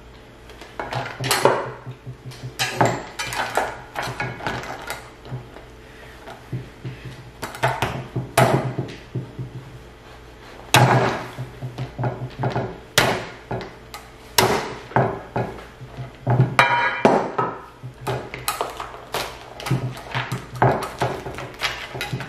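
King crab leg shells being cracked and snapped apart, a long run of sharp, irregular cracks and clicks.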